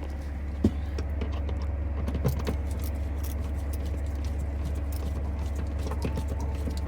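Steady low hum of an idling truck engine, with many small clicks and light rattles on top, two sharper knocks in the first few seconds.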